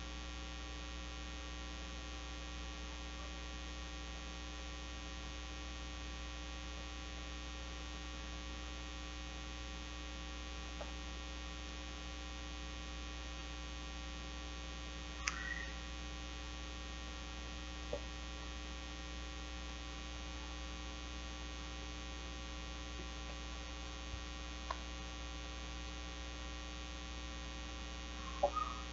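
Steady electrical mains hum, with a few faint, brief clicks and rustles, most of them near the middle and near the end.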